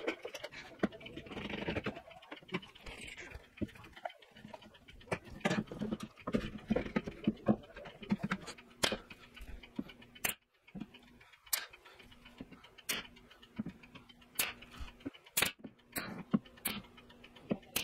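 Clamps and cabinet panels being handled, with irregular knocks and rattles. About halfway through, a pneumatic pin nailer starts firing sharp single shots, roughly one a second, pinning the side panel to the cabinet frame over a faint steady hum.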